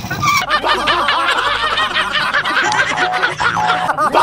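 Edited-in meme sound effect: a dense run of rapid, overlapping honking cackles, cutting in abruptly about half a second in.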